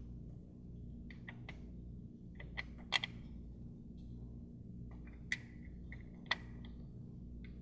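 Scattered light clicks and taps of small metal parts being handled as the shift-cable bracket is fitted on the transmission, the sharpest about three seconds in, over a steady low background hum.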